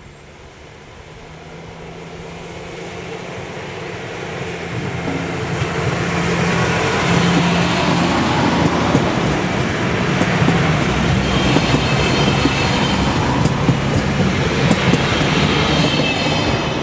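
Alstom Coradia LINT diesel multiple unit approaching and passing close by. Its engine hum and wheel noise grow louder over the first several seconds, then stay loud and steady as the cars go past, with a few clicks from the wheels near the end.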